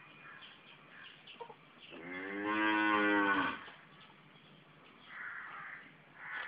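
A cow lows once, a single moo of about a second and a half starting about two seconds in, its pitch dropping at the end.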